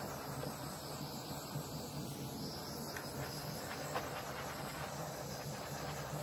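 Handheld butane torch burning with a steady hiss as its flame is passed over wet acrylic paint to burst bubbles, with a couple of faint ticks about halfway through.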